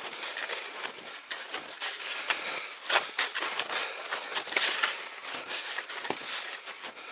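Wide Taiga hunting skis sliding and crunching over fresh snow in a ski track, a continuous uneven scraping made of short scrapes from each stride.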